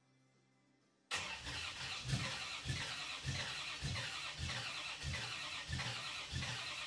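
1962 Chevrolet Impala SS's 327 V8 turning over on the starter without catching, cutting in suddenly about a second in, with a heavier beat a little under twice a second. It is cranked to pull fuel up to a carburetor that is not yet getting any.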